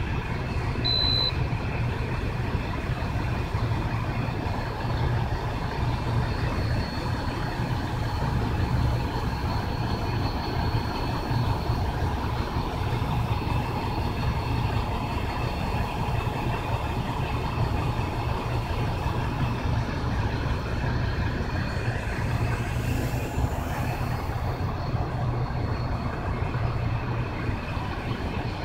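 Brushless electric motor and propeller of an FMS J3 Cub RC plane droning steadily in flight, over a steady low rumble. A short high beep sounds about a second in.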